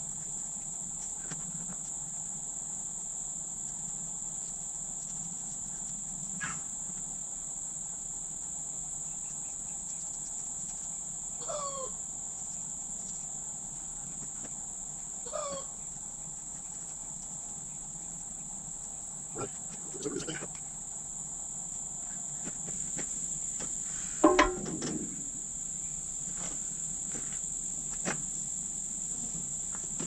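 Steady, high-pitched chorus of insects. Two short falling calls come about four seconds apart near the middle, and a single sharp knock sounds near the end.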